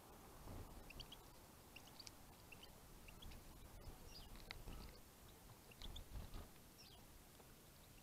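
Faint, scattered short high chirps and small pecking clicks from small finches feeding on seed on a bird table. There are a couple of low thumps, about half a second in and around six seconds in.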